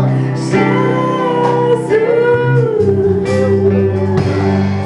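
Live worship band: a woman singing a held, gliding melody into a microphone over a strummed acoustic guitar and an electric bass.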